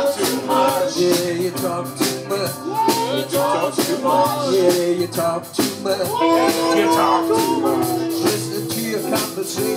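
Live rock band playing, with electric guitars and drums. A lead line bends between notes, and one long note is held in the middle.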